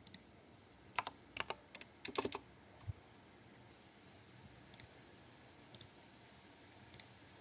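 Computer keyboard being typed on in a quick run of keystrokes about a second in, then three single mouse clicks about a second apart.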